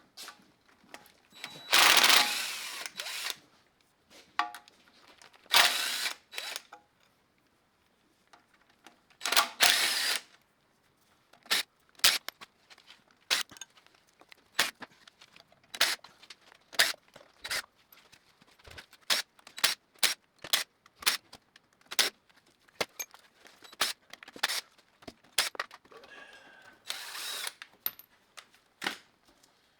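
Tools at work loosening the oil pan bolts on a Farmall Super C: three bursts of about a second each from a power tool in the first ten seconds, then a long run of short sharp clicks, roughly two a second.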